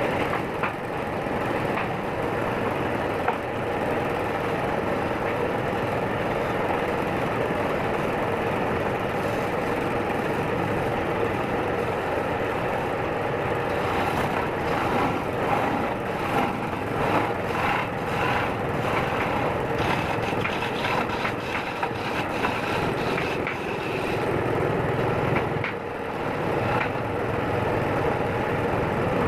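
Electric woodturning lathe running steadily with a hum, with a turning tool cutting the spinning wood; the cutting turns into a stretch of rapid scraping and knocking midway.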